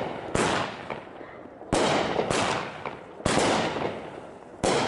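Consumer aerial fireworks bursting overhead: five sharp bangs at uneven intervals of about half a second to a second and a half, each trailing away over about a second.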